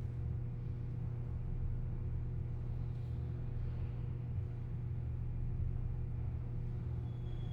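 Dark ambient drone from a sound-effect soundscape: a steady low rumbling hum with faint higher tones held over it and soft airy swells coming and going.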